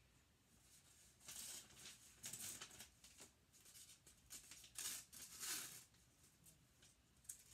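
Scissors cutting through wrapping paper, heard as a faint series of short, crisp snips and paper rustles.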